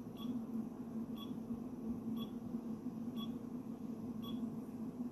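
A short electronic beep repeating about once a second over a steady low hum.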